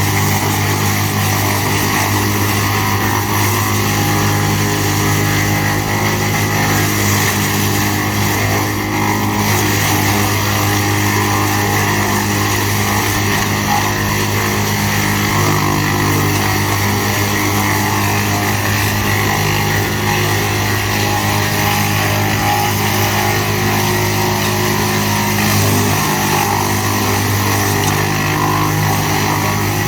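Tractor engine driving a GL&D M175DS woodchipper, running steadily at working speed.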